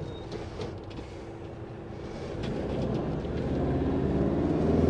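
Camper van's engine running under way, pulling harder, with its pitch and level rising over the second half.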